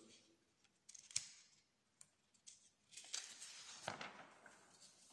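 Sheets of paper being handled and turned to the next page: a couple of light clicks about a second in, then a papery rustle with a sharp tap around three to four seconds in.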